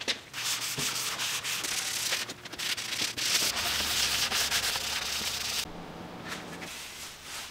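Gloved hand rubbing a dark liquid into a wooden slab, a steady scrubbing noise that stops about five and a half seconds in.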